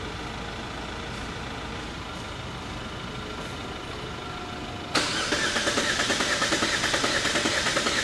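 After a low background, the starter motor suddenly starts cranking the Holden Astra's 1.6-litre turbo four-cylinder engine, which does not fire because its injectors are disabled; the cranking gives a steady pulsing chug of about five beats a second. One of the four cylinders has lost its compression.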